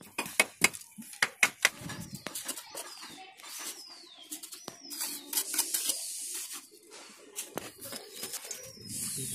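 Sharp knocks and clicks of bricks and masonry tools being handled as bricks are laid in mortar, thickest in the first two seconds, with a few scattered knocks later. Birds call several times with short falling whistles.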